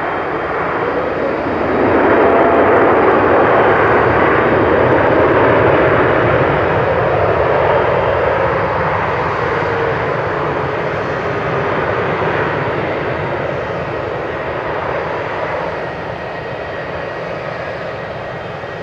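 Boeing 777-200ER jet engines and airframe on the landing roll: a loud rushing roar that swells about two seconds in, holds, then slowly fades over the last ten seconds.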